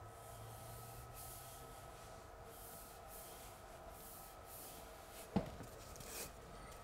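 Soft, repeated swishing of a wide wallpaper brush stroked across a pasted paper backscene, smoothing it flat against the wall, with a short knock about five seconds in.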